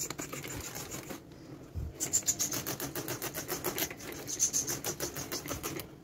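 Rapid back-and-forth scrubbing and rubbing on a kitchen cabinet shelf during cleaning, about six strokes a second, easing off briefly about a second in before going on.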